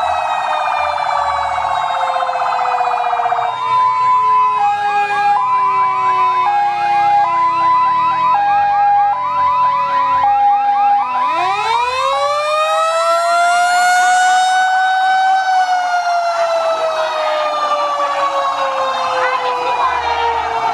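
Electronic vehicle siren running loud through several patterns. It starts with a fast warble, then a hi-lo two-note alternation over a slowly falling wail. About eleven seconds in, it switches to a wail that rises for about four seconds and then slowly falls.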